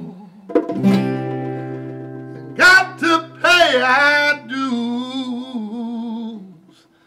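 A man singing over an acoustic guitar: one chord is strummed about a second in and left to ring, while he holds a long, wavering note that fades out near the end.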